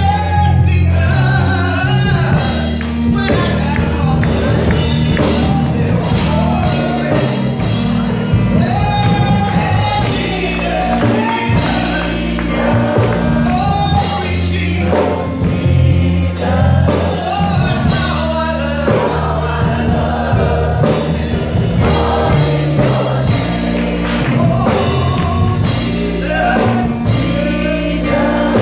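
Live gospel choir singing with a band, over sustained keyboard bass notes and a drum kit keeping the beat.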